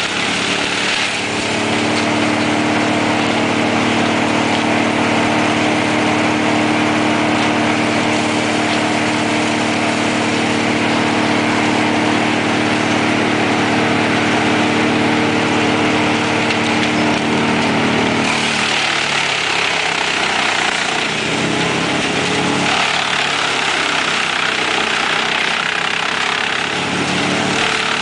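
Truck-mounted wood chipper running loudly while a crane grapple feeds it brush and branches. The engine's steady drone gives way about two-thirds of the way through to a rougher, uneven sound with more hiss, as branches are chipped.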